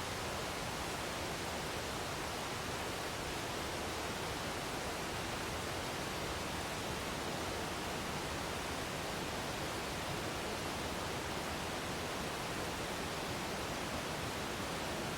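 Waterfall: a steady, even noise of falling water that does not change.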